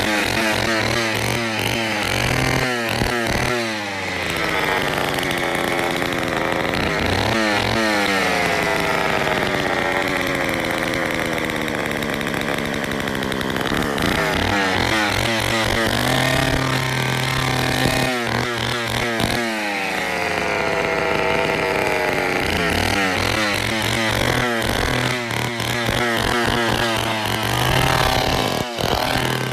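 Poulan 245A two-stroke chainsaw running, revved up in repeated bursts that fall back each time to a steady idle. The owner calls the sound perfect.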